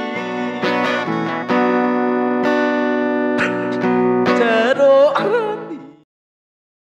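Song clip of acoustic guitar strumming with a singing voice, which cuts off abruptly about six seconds in, leaving silence.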